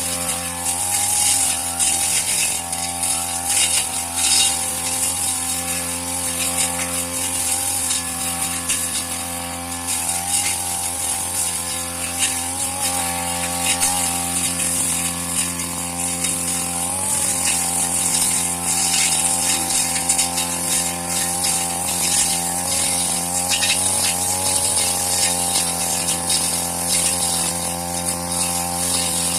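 Petrol grass-cutting machine (brush cutter) running steadily at working speed while cutting grass, its engine note dipping and rising slightly a few times, with a high hiss from the cutting head.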